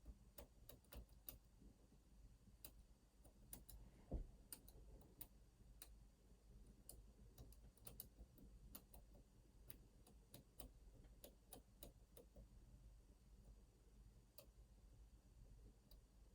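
Faint, irregular small metallic clicks and ticks of a lock being picked, with one louder knock about four seconds in.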